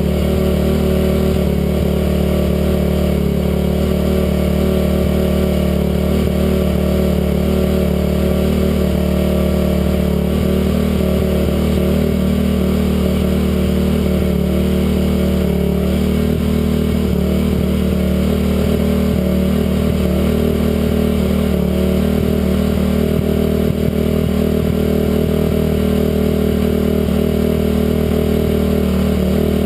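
Stock 2007 Honda CRF250R dirt bike's single-cylinder four-stroke engine running at a steady, even speed, with no revving.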